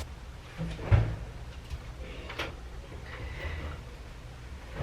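A heavy thump about a second in, then a lighter click, like household things being set down or shut.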